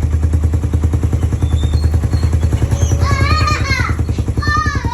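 Engine idling steadily through a Smok power pipe exhaust, a fast, even pulsing throb. About three seconds in and again near the end, a short high wavering call sounds over it.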